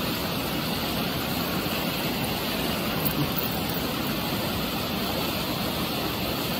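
Steady rushing of a mountain stream or waterfall, an even unbroken roar of water.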